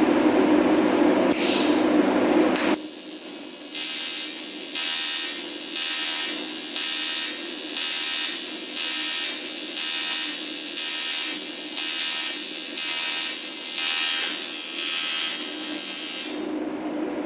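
TIG welding arc on cast aluminum buzzing steadily, pulsing evenly about one and a half times a second, from about three seconds in until it cuts off near the end. It is a tack attempt on dirty oil-pan pieces that the welder judges not successful because of the contamination.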